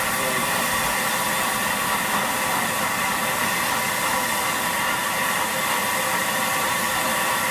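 Steam locomotive standing with a steady, loud hiss of steam venting from low at its front end.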